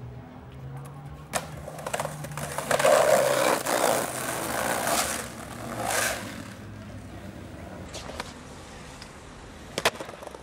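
Skateboard street-skating sounds: sharp clacks of the board popping and landing, and a long loud scraping grind from about two and a half to five seconds in, with another short scrape about six seconds in.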